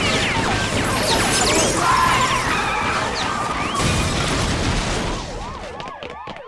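Action sound effects: a hail of gunfire ricocheting off an armored van, with many short whining ricochets. The heavy van then crashes and scrapes along the ground with a metal screech and a low rumble. It fades toward the end with a few more ricochet whines.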